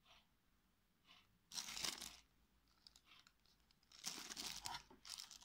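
Plastic packaging crinkling and rustling as it is handled, in two bursts: one about a second and a half in, and a longer one around four seconds in.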